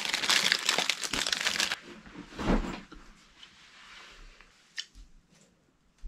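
Plastic wrapping of a cookie packet crinkling loudly as it is torn open, for about the first two seconds, then a few quieter rustles and taps as a cookie is taken out.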